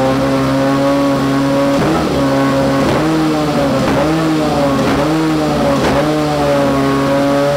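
Nissan GT-R GT500 race car's V8 idling during an engine check, with its engine cover off. The idle is steady at first, then its note dips and recovers about five times between two and six seconds in, before settling again.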